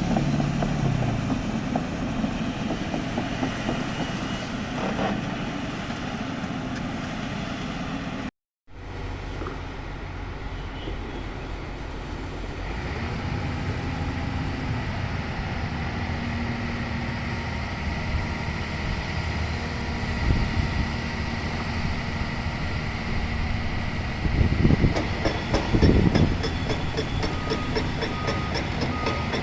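Hyundai crawler excavator's diesel engine and hydraulics running steadily under load, with rattling. The sound cuts out briefly about eight seconds in, and several heavy knocks come in the last third.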